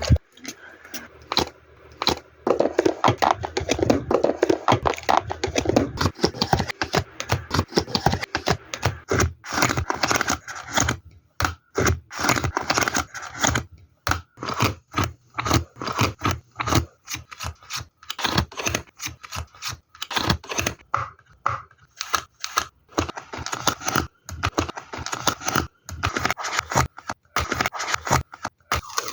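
Handling noise: rapid, irregular scraping, scratching and crackling, with tearing sounds, in a small room.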